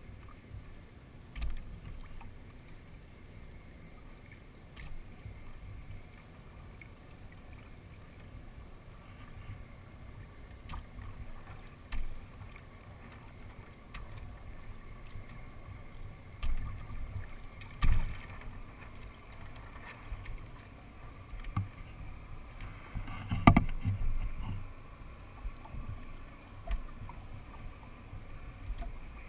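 Water sloshing and lapping against the hull of a Hobie Adventure Island sail kayak as it moves slowly through calm water, with a few sharp knocks from the boat's hull and fittings, the loudest about two-thirds of the way through.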